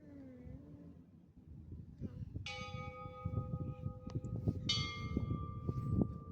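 Mission church bell struck twice, about two seconds apart, each stroke ringing on over the last.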